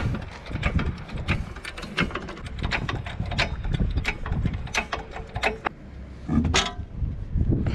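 Irregular sharp metal clicks and clinks, several a second, from wheel nuts and a wheel wrench being handled as a wheel comes off a car raised on a trolley jack.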